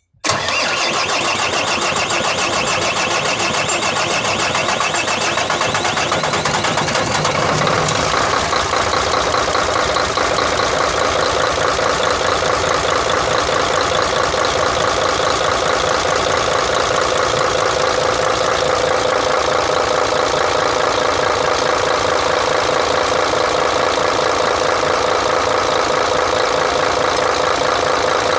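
Mercedes-Benz Actros 1844's V6 diesel engine running steadily, its note shifting slightly about eight seconds in. The fuel system has just been bled of air to cure its hard starting.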